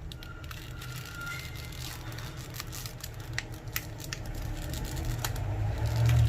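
Packaging of a T12 soldering-iron tip crinkling and tearing as it is opened, a run of scattered sharp crackles. A low rumble of handling grows louder near the end.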